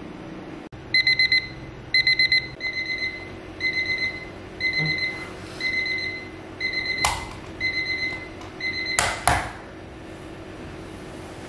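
Small digital alarm clock going off: high electronic beeps that start about a second in as quick runs of four, then settle into single beeps at about one and a half a second. Two loud thumps break in, about seven and nine seconds in, and the beeping stops with the second.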